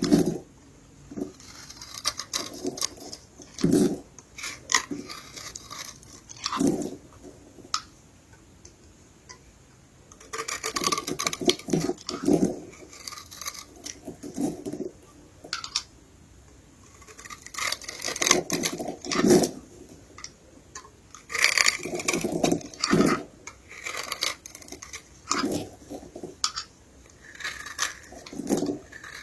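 Soap being crushed and crumbled, a run of crunches and crackles that come in irregular bursts with short lulls between.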